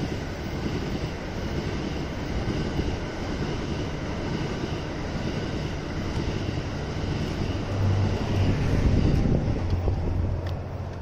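E26-series sleeper passenger cars running past on the rails, a steady rumble of wheels on track. It grows louder with a low hum as the last car goes by about eight seconds in, then drops away near the end.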